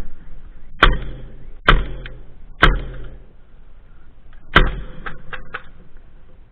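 Airsoft gunfire: three sharp single shots about a second apart, then a fourth after a short pause, followed by a quick run of fainter clicks.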